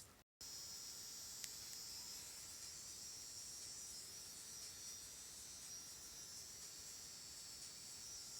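Faint, steady high-pitched hiss with a slight buzz, after a brief dropout just as it begins.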